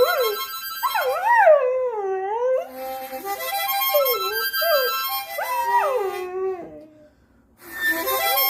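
A dog howling along to an unskilfully played harmonica (mouth organ). The harmonica holds uneven chords while the dog's howls rise and fall over them. Both stop for about a second near the end, then start again.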